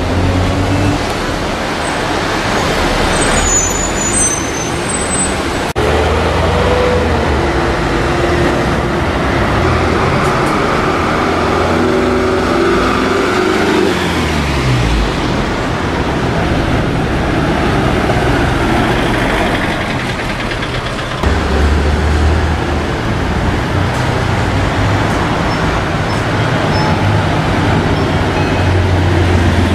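Isuzu and Mitsubishi Fuso diesel city buses running in traffic, pulling away and driving past one after another. The engine note steps and drops in pitch about halfway through, and the sound changes abruptly twice where one bus clip gives way to the next.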